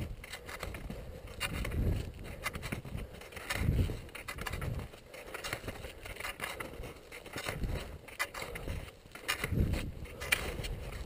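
Touring skis sliding and scraping over hard snow, with irregular clicks and rattles and low rumbling swells every few seconds.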